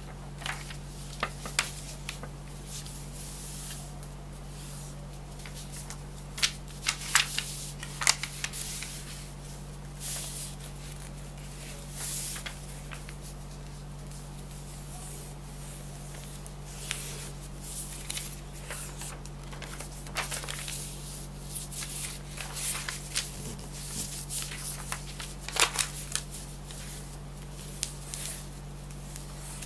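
Sheets of paper rustling, sliding and crinkling as they are handled and folded, in short scattered crackles over a steady low hum.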